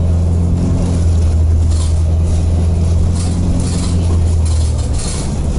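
Inside a 2016 New Flyer XDE40 diesel-electric hybrid bus under way: a steady low drone from its Cummins ISL9 diesel and drivetrain, mixed with road noise. The drone eases briefly near the end.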